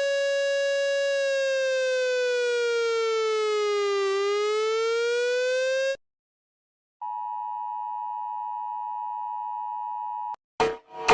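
Emergency alert alarm audio: a buzzy electronic siren tone holds, slides slowly down in pitch and back up, then cuts off suddenly. After a second of silence a steady, higher electronic alert tone sounds for about three seconds, and choppy sounds start just before the end.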